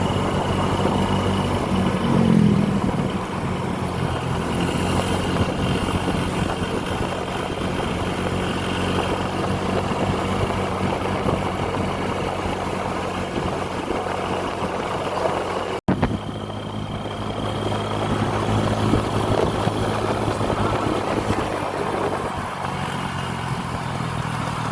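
Road vehicle engines running steadily, a low hum over traffic noise, with a momentary cut to silence about 16 seconds in.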